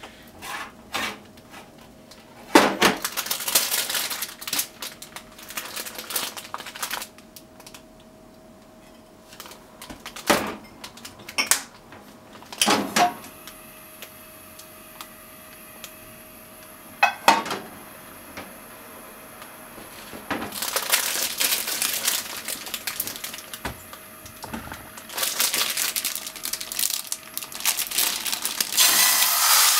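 Scattered knocks and clatter of a frying pan being handled and tilted on a gas stove, with plastic packaging crinkling. Near the end raw chicken goes into the hot oiled pan and starts to sizzle.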